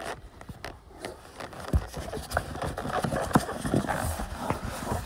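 Handling noise from a Shoei motorcycle helmet as it is taken out of its packaging and turned over: irregular rustling and scraping with many small knocks and a few heavier thuds.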